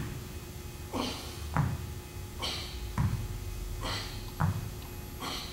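Dumbbells being lifted and set back down on a hard floor in turn during plank rows: several soft, dull thuds about a second or so apart.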